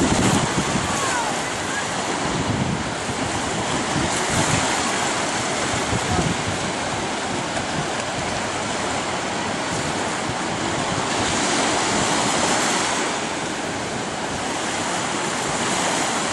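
Ocean surf breaking and washing toward shore in a steady rush, with wind gusting on the microphone in low thumps over the first several seconds. The wash swells louder about two-thirds of the way through.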